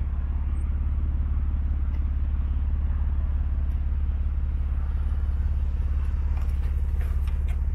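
Motor vehicle engine idling with a steady low hum.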